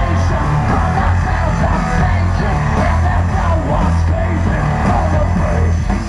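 Loud live rock music: a band playing electric guitar over long, heavy bass notes.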